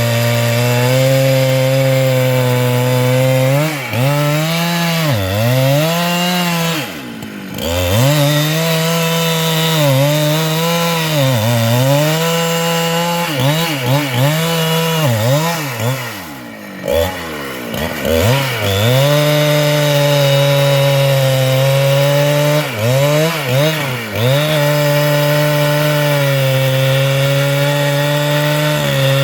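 Large Husqvarna two-stroke chainsaw cutting into a sengon (albizia) trunk at full throttle. Its pitch dips again and again as the chain bogs under load, then picks back up, with two deeper drops, about a quarter of the way in and just past halfway.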